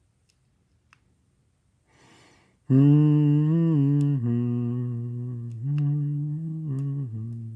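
A man humming a short tune, a string of held notes stepping up and down, starting nearly three seconds in. A few faint clicks come through around it.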